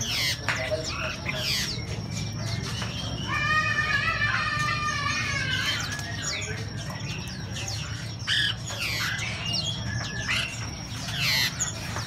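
Many caged songbirds chirping and calling, with short sharp falling notes throughout and a longer, layered call about three to six seconds in, over a steady low hum.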